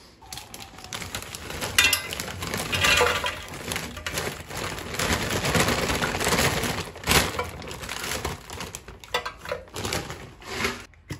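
Kitchen clatter: dishes, cutlery and glassware knocking and clinking in a dense run of handling sounds, which stops abruptly near the end.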